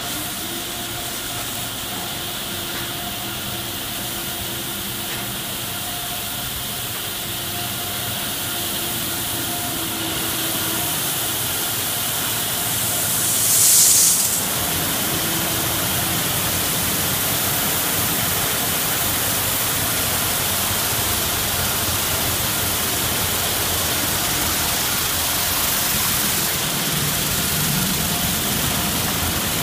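Automatic tunnel car wash running: steady rush of pumps and water spraying over a car, with faint machine hums. About halfway through, a high-pressure spray bar blasts the car's side in a brief, loud hiss.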